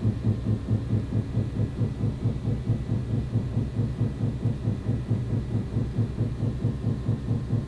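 Loud, rhythmic banging heard through a wall: low, even thuds at about three a second, keeping a steady beat.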